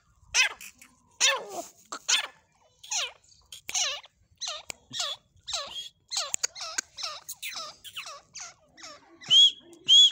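Female grey francolin (desi teetar) calling non-stop: a run of short, sharp notes, each dropping steeply in pitch, about two to three a second and quickening, with two louder, higher notes near the end.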